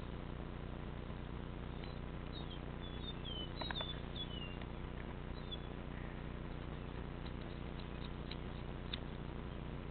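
A small frog squeaking in distress as a cat eats it alive: several short, high squeaks that fall in pitch, bunched in the first half. A few light clicks are scattered through it, the loudest a knock about a third of the way in.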